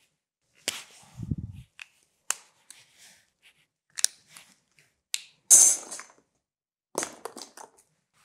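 Scattered sharp clicks, taps and rustles of a small object being handled, the loudest a short rustling burst about five and a half seconds in, with a brief low hum about a second in.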